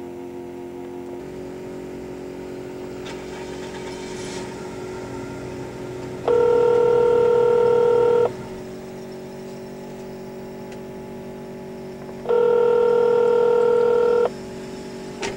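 Cell phone ringback tone, two rings each about two seconds long and six seconds apart: the US ring signal heard by the caller while the called pay phone rings unanswered. A fainter steady hum runs between the rings.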